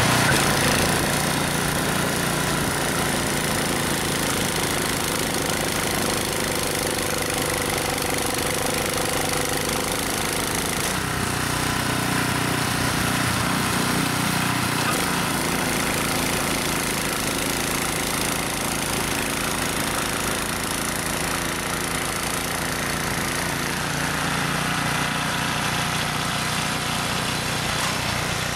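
Ariens Deluxe 30 snow blower's 306cc single-cylinder engine running steadily.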